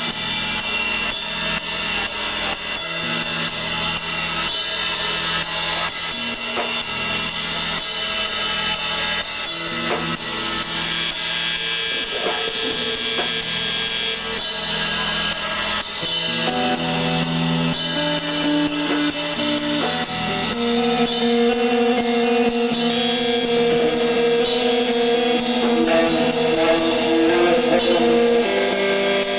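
Live emo rock band playing an instrumental passage: full drum kit with constant cymbal hits under bass and guitar. About halfway through, long held notes ring out over the drums and the music grows louder.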